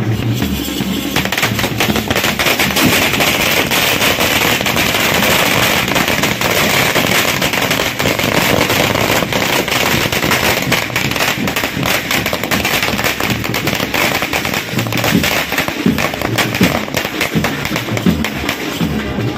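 A long string of firecrackers going off in a rapid, continuous chain of bangs, starting about a second in, with music playing underneath.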